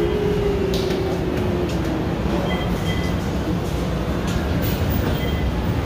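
Metro train running on the elevated line at the station: a steady low rumble, with a motor whine that slowly drops in pitch and fades over the first two seconds.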